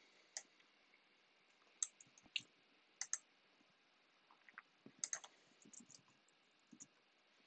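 Faint, scattered clicks of a computer keyboard and mouse, a dozen or so single and paired clicks spread through the quiet, as a line of code is copied and pasted.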